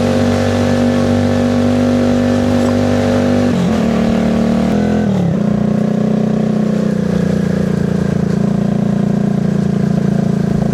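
Alpha moped's single-cylinder engine running steadily while riding. About three and a half seconds in, the revs fall away in steps for a second or two, then the engine settles and runs steadily again.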